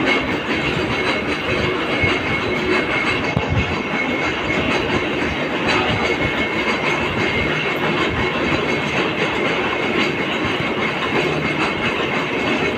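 Metalworking machine running steadily, a continuous mechanical noise with a faint high whine held throughout.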